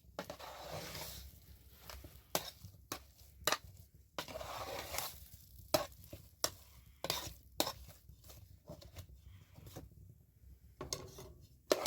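Kitchen utensils knocking and scraping against pots and dishes: two longer stretches of scraping or stirring, with sharp clinks in between.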